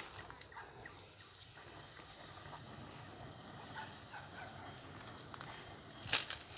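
Quiet outdoor ambience with faint, high-pitched insect sounds. Near the end comes a short burst of crackling crunches.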